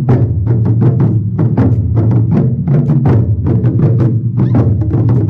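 Percussion music: drumsticks striking out a rapid, even rhythm of sharp wooden clicks, about four a second, over a sustained low bass.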